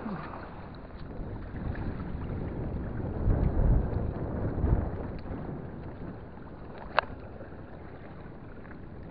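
Wind buffeting the microphone over open water, with a low rumble of gusts that is strongest about three to five seconds in. One sharp click comes about seven seconds in.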